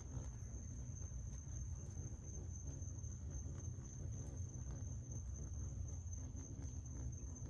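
Crickets trilling in one steady, unbroken high-pitched tone, over a low rumble.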